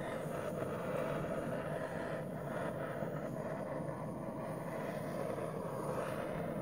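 Handheld electric heat gun running steadily, its fan blowing hot air over wet acrylic pour paint to bring cells up to the surface.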